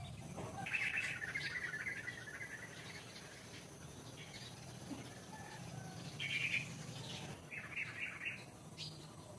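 Small birds chirping in quick runs of high notes: a longer run about a second in, then shorter bursts around six seconds and near eight seconds, over a low steady background hum.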